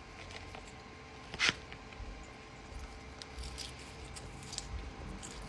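A plastic fork scraping and stabbing through a kale salad in its bowl, loudest once about a second and a half in, then close-up chewing of the crunchy salad with small wet clicks and crackles.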